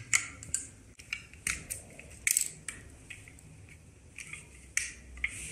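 Plastic spoke reflector being handled and clipped onto a bicycle wheel's spokes: a string of irregular short clicks and rustles.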